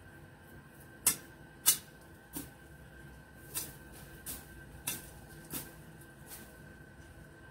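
A series of sharp clicks or snips, about one every two-thirds of a second, from hand work among shrubs and dry twigs, with the two loudest in the first two seconds. A faint steady high whine runs behind them.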